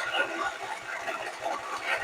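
Starter cranking the Cub Cadet 364 zero-turn mower's engine, which turns over but does not catch.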